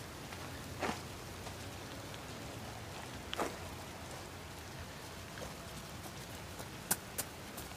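Steady light rain falling, an even hiss with a few sharper drop-like ticks scattered through it.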